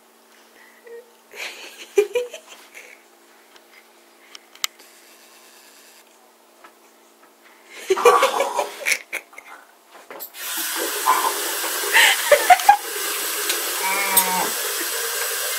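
A man coughing and spluttering over a sink, choking on a mouthful of dry ground cinnamon, in two rough bouts. About ten seconds in, a bathroom tap is turned on and runs steadily into the basin.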